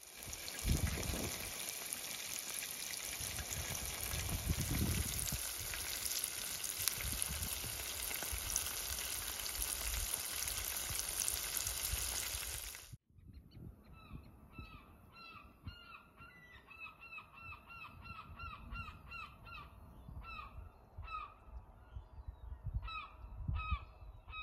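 Fish steaks frying in hot oil in a pan over a gas burner: a loud, steady sizzle. About halfway through it cuts off abruptly, giving way to birds calling over and over, short calls falling in pitch, much quieter.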